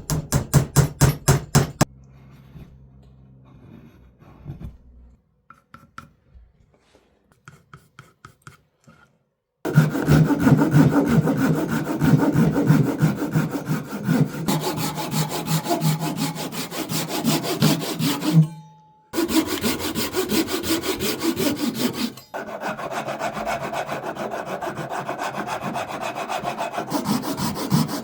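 Hand saw cutting through wood in fast back-and-forth strokes. The sawing stops for several seconds near the start and pauses briefly twice later.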